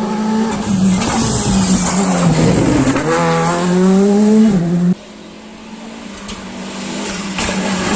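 Rally car engine at full throttle, its pitch climbing and dropping several times through gear changes. About five seconds in it cuts off suddenly to a quieter engine that grows louder as another car approaches.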